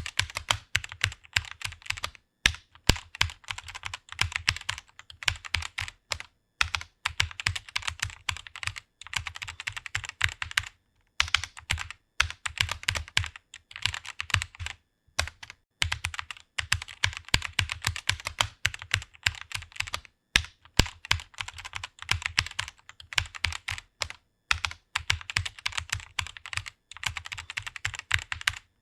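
Computer keyboard being typed on rapidly: a fast, continuous stream of keystroke clicks broken by brief pauses every few seconds.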